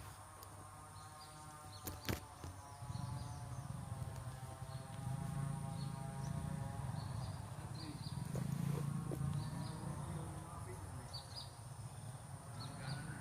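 Outdoor ambience: repeated short bird chirps over a steady high insect whine, with a low rumble that builds from about three seconds in and becomes the loudest sound. A steady pitched hum sounds through the first half and fades out.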